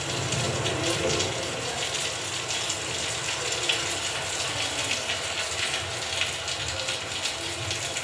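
Field recording of a thunderstorm by a lake, played back over loudspeakers: rain pouring in a steady hiss dotted with the patter of drops.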